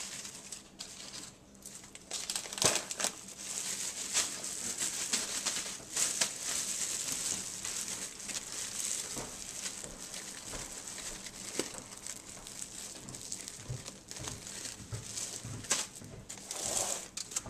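Thin clear plastic bag of ridged potato chips crinkling and crackling as it is handled, gathered at the top and knotted shut, with irregular sharp crackles throughout.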